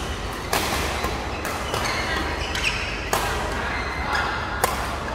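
Badminton rackets striking a shuttlecock in a doubles rally: several sharp hits about a second apart, each ringing briefly in a large echoing hall.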